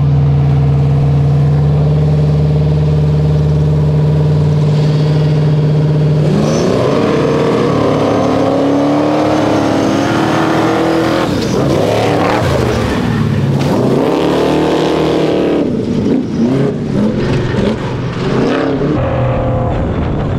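A prerunner truck's engine holds steady revs for about six seconds, then accelerates hard. Its pitch climbs and drops several times as it pulls away over the ground.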